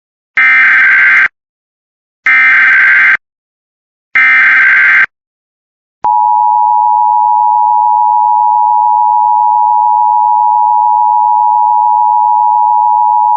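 Emergency Alert System opening for a Blue Alert: three identical short bursts of screeching SAME digital header data, about a second apart, then from about six seconds in the steady two-tone EAS attention signal.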